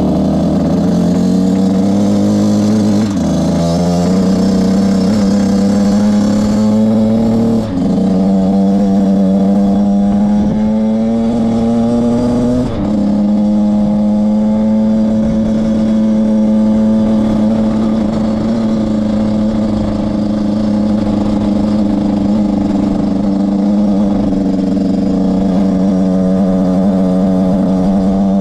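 Beta RR 50's small two-stroke engine under way, heard from on the bike. The pitch climbs and then drops sharply three times, about 3, 8 and 13 seconds in, as at gear changes, then holds steady at a cruise.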